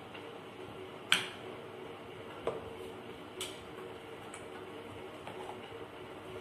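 A plastic serving spoon clicking against a serving bowl and plate while fruit salad is stirred: one sharp click about a second in, then three fainter ones, over a steady low hum.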